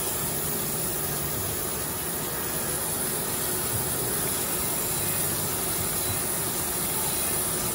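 Crankshaft grinder running steadily, its wheel grinding a main journal of a Buick 3.8 V6 crankshaft under a flow of coolant, a constant hiss over a low machine hum. The journal is in the last few thousandths before its finished size.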